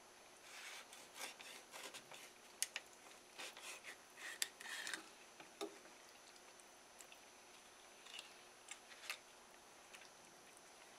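Kitchen knife slicing and scraping along a flounder fillet on a wooden cutting board: faint rasping strokes and light clicks, bunched in the first half with a few more near the end.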